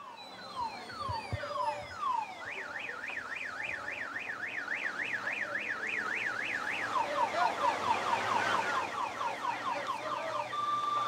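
Electronic emergency-vehicle siren cycling through its patterns: falling sweeps, then a fast up-and-down yelp about three times a second, then quicker falling sweeps. Near the end it switches to a two-tone hi-lo.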